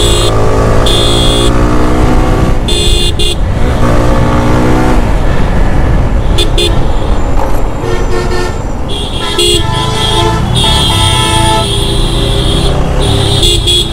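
Motorcycle riding at speed with a heavy wind rumble on the microphone, while vehicle horns sound several times in traffic: short shrill toots and a few longer horn blasts lasting a second or more.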